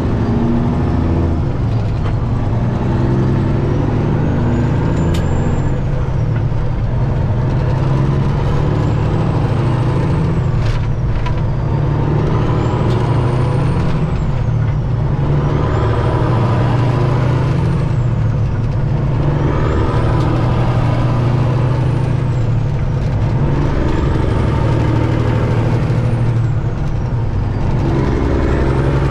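Detroit Diesel engine of a Peterbilt 379 semi truck running steadily, with a faint high whistle that rises and falls about every four seconds over the low engine drone.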